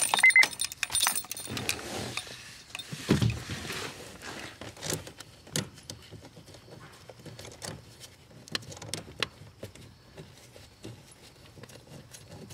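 Light metallic clicks and handling noise as a gloved hand works the lower bolt into the steering-column U-joint clamp on the rack's input shaft, with a dull knock about three seconds in. A short electronic beep sounds right at the start.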